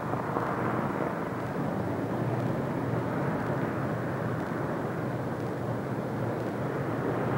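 Steady drone of a Lockheed Super Constellation airliner's four radial piston engines as it lands, with no sharp events.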